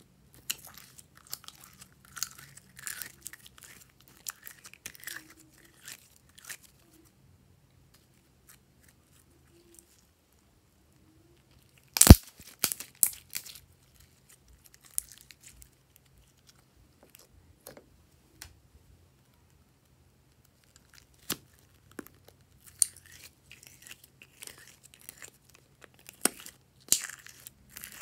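Glitter slime being peeled out of plastic cups and stretched by hand: soft sticky crackling and tearing, broken by a few sharp clicks, the loudest about twelve seconds in, with quiet stretches between.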